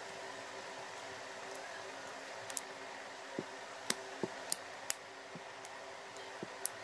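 Plastic back cover of an Oppo A7 phone being pressed back onto its frame: a series of small, sharp clicks, about eight, as its clips snap into place, over a steady background hiss.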